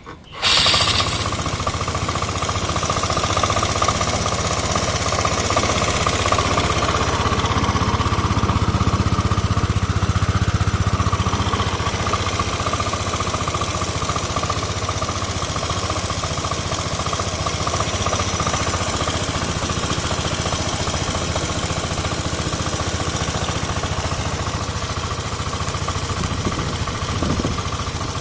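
Yamaha New Cygnus X scooter's 125 cc single-cylinder four-stroke engine starting just after the beginning, then idling steadily with a constant whine over the running noise. This is the abnormal noise the owner is recording, quieter on this restart after the engine cooled for 40 minutes.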